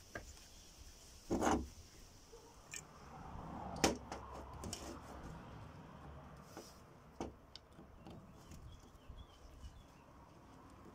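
Faint clicks and knocks of small metal parts and a screwdriver as a Honda Dio scooter carburetor is put back together on a steel workbench. There are a handful of separate knocks, the loudest about a second and a half in.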